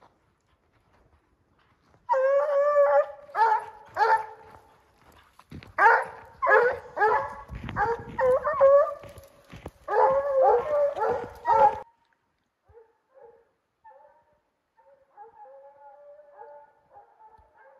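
Redbone hounds baying: one long held bawl about two seconds in, then a string of shorter bawls. About twelve seconds in the baying drops away to fainter, more distant calls.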